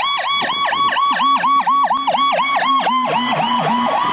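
Ambulance's electronic siren sounding a fast-cycling wail that drops and rises about six times a second. A lower wavering tone joins about a second in.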